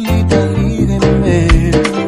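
Music: an instrumental passage with a bass line, sustained chords and drum hits.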